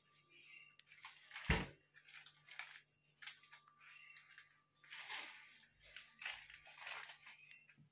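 Crinkling and rustling of a crumpled plastic wrapper handled by a small child, in short irregular bursts, with one dull thump about one and a half seconds in.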